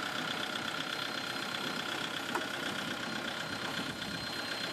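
Steady idling of heavy machinery, with a faint steady high whine over it and one sharp click about two and a half seconds in.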